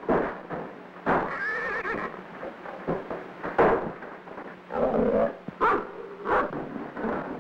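A stallion whinnying and neighing several times, with sharp thumps in between, on an old film soundtrack.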